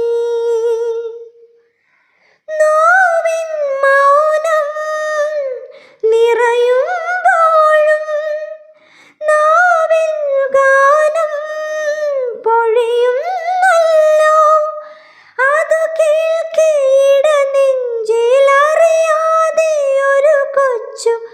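A single high-pitched voice singing a Malayalam song unaccompanied, in phrases a few seconds long with short pauses between.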